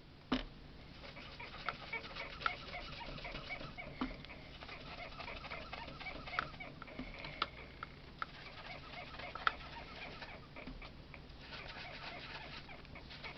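Ink blending brush working dark green ink through a star stencil onto card: a continuous soft scratchy rubbing with small ticks as the bristles dab and swirl.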